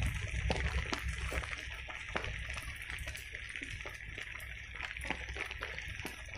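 Steady rain, with scattered sharp ticks and a low rumble of wind on the microphone.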